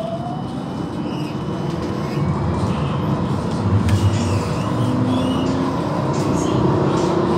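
Amsterdam tram running on its rails and picking up speed, heard from inside the car: a steady rumble and rolling noise that slowly grows louder. The motor's rising whine tops out and fades in the first second.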